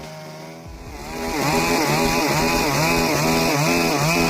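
Chainsaw engine running at lower speed, then revved up about a second in and cutting wood. Its pitch wavers up and down about twice a second under load.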